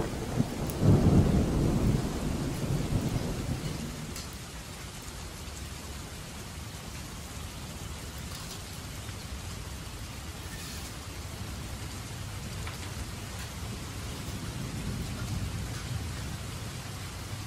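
Thunder rumbling and dying away over the first few seconds, then steady rain falling.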